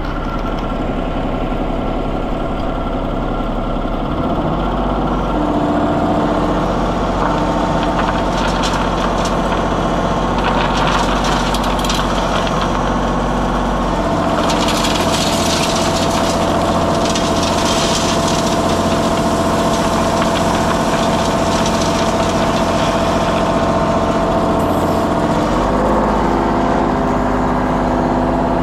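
Machine engines running, their pitch shifting a few times as they are throttled, with stretches of scraping and rattling through the middle as loose decorative stone is scooped and tipped into a tracked power wheelbarrow.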